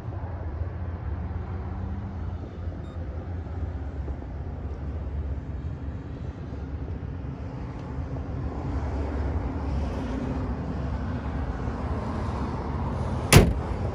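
A steady low engine rumble of a vehicle idling, then, near the end, one loud slam of a pickup's hood being shut.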